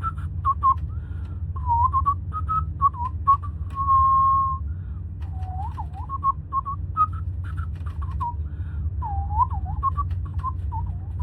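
A person whistling a tune of short notes that swoop up and down, with one longer held note about four seconds in, over a steady low hum.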